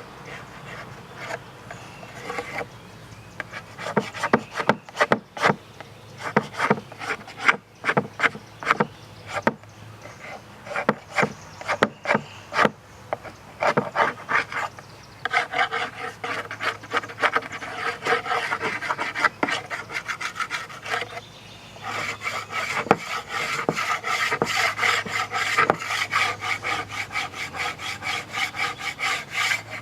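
Hand sanding on wood: rapid back-and-forth rubbing strokes, uneven at first, then fast and steady, with two short pauses.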